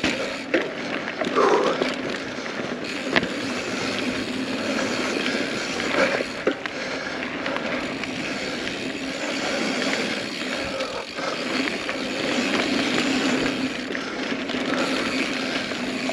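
Mountain bike rolling fast down a dirt trail: steady knobby-tyre noise on packed dirt, with the bike rattling and a few sharp knocks as it goes over bumps and roots.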